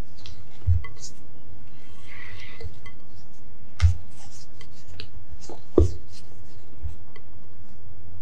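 Spatula folding thick lemon pound cake batter in a glass mixing bowl: soft scraping, with three knocks of the spatula against the glass, about a second in, near four seconds and near six seconds. A steady low hum runs underneath.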